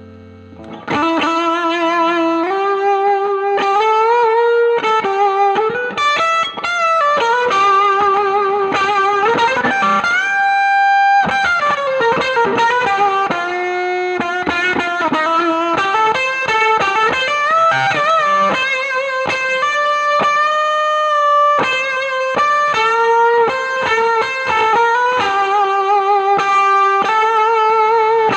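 Electric guitar, a Nash S63 Strat-style, played through a Spruce Effects Volcanoes silicon/germanium hybrid fuzz pedal into a Milkman The Amp 100: sustained single-note lead lines with string bends and vibrato, starting about a second in.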